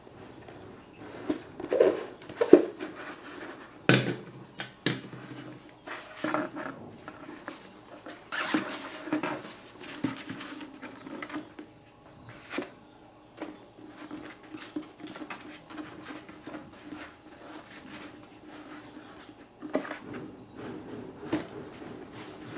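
A thin plastic sheet rolled into a cone by hand, with a pleated paper camera bellows fitted over it. The handling makes irregular rustling and crinkling with sharp taps and clicks, busiest in the first half.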